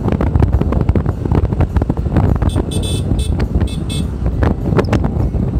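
Heavy wind buffeting on the microphone over the rumble of a moving vehicle, with a brief run of short high-pitched pulses about two and a half to four seconds in.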